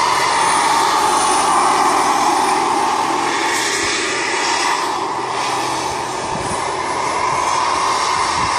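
Large radio-controlled scale helicopter in flight: a steady engine-and-rotor whine, dipping slightly in loudness around the middle as it banks away and then coming back up.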